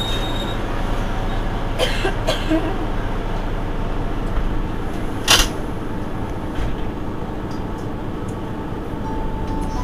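Mercedes-Benz Citaro G articulated bus idling at a stop, a steady low engine hum. A sharp knock comes about five seconds in, with a few fainter clicks near two seconds.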